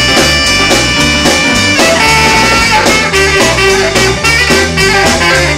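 Live recording of a rhythm-and-blues band with a saxophone section playing an instrumental boogie passage: a steady repeating bass line under guitar, piano and saxophones, with long held notes above it.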